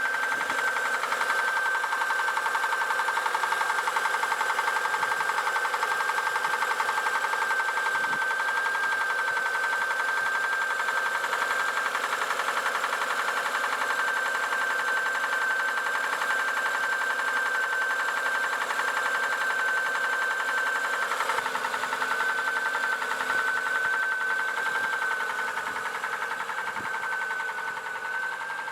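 Car engine running with a fast, steady knock and a steady high whine over it. The knock has newly developed and its cause is not yet known.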